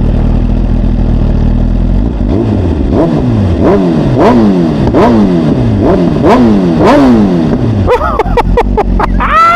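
Suzuki GSX-R1000R's inline-four engine, already warmed up, idling steadily and then revved in a series of quick throttle blips, about one and a half a second, each rising and falling back, with faster, choppier blips near the end.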